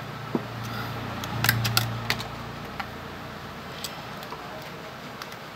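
Sharp plastic clicks and handling knocks as a battery is seated in a feature phone and its plastic back cover is handled and pressed on, with a bunch of clicks about a second and a half in and a few scattered ones after. A low hum sits under the first two seconds.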